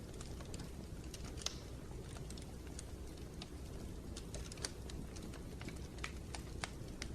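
Wood fire crackling in a fireplace: irregular sharp crackles and pops over a steady low rumble, with one louder pop about a second and a half in.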